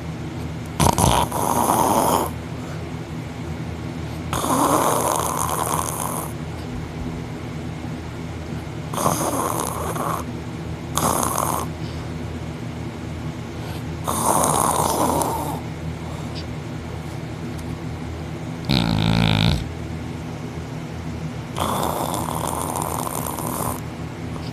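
A man snoring heavily in deep sleep, lying on his back with his mouth open: a loud snore every few seconds over a steady low hum. About three-quarters through, one shorter snore comes out as a buzzing snort.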